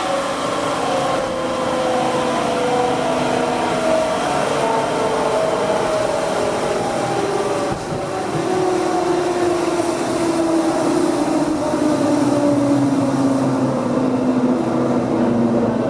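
Berlin S-Bahn class 480 electric train with its original GTO traction electronics, heard from inside: loud whining tones from the traction equipment falling steadily in pitch as the train slows, over running rumble. About halfway through a new, lower whine sets in and keeps falling.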